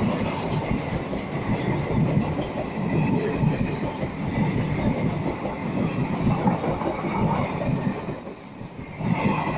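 An Indian Railways train running past, its wheels clattering over the rail joints above a steady rumble. The sound eases briefly near the end, then picks up again.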